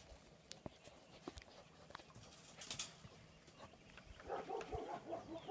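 Faint German Shepherd puppy whining: a run of short, high-pitched cries starting about four seconds in, after scattered faint clicks.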